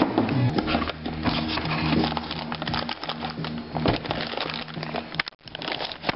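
Handling noise from a handheld camera and engine parts moved about on a workbench: a dense run of small knocks, clicks and rustles, dropping out briefly a little past five seconds in.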